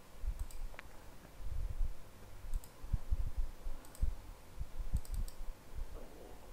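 Computer mouse button clicks: a handful of short, sharp clicks, several of them in quick pairs and a quick cluster of three about five seconds in, with low, dull bumps in between.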